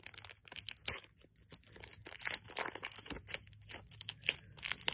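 Foil Pokémon booster pack wrapper crinkling in the hands as it is tugged and torn at, in a run of irregular crackles; the pack is resisting being opened.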